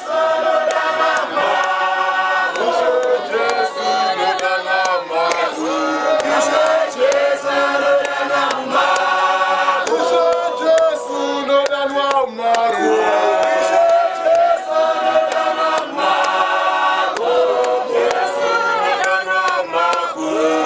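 Church choir singing a Shona hymn, unaccompanied, in many voices with long held notes that change together every second or two.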